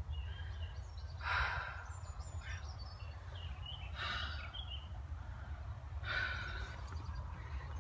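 A person breathing out heavily close to the microphone, three breaths a couple of seconds apart, over a steady low rumble.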